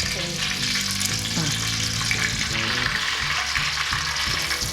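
Whole spices, cinnamon and cloves, sizzling in hot cooking oil in a pan: a steady frying hiss.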